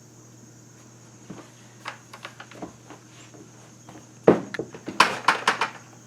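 Bucket of potatoes being handled and set down: light scattered knocks, then a heavy thump about four seconds in, followed by a quick run of knocks and rattles as the potatoes shift in the bucket.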